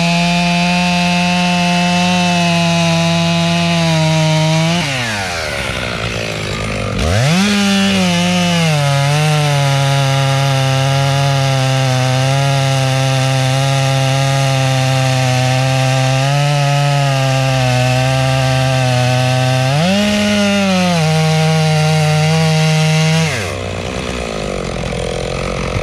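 Two-stroke chainsaw running at full throttle while cutting wood. Its engine note drops off about five seconds in, revs back up to a steady high pitch, and falls away near the end.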